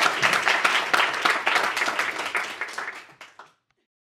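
Audience applauding, a dense patter of many hands clapping that fades out and stops about three and a half seconds in.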